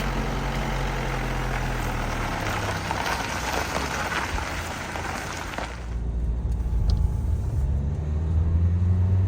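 A small camper van's engine running. About six seconds in, the background hiss falls away and the low engine hum comes to the fore, rising slightly in pitch as the van gets going.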